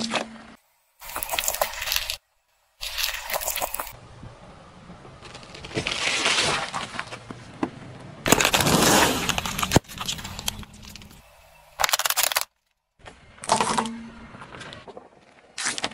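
A car tyre rolling over and crushing things in a string of short clips: loud cracks and crunches, cut apart by brief dead-silent gaps. The loudest crunch comes about eight to ten seconds in.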